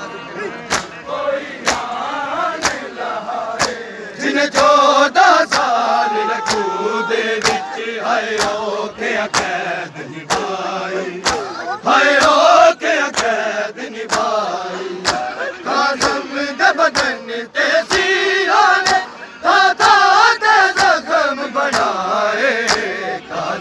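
Crowd of men chanting a noha together, with a steady beat of sharp slaps: hands striking bare chests in matam. The chanting grows louder a few seconds in.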